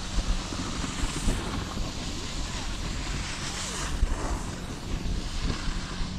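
Wind buffeting the microphone, with the hiss and scrape of skis on snow that swells a couple of times during a downhill run.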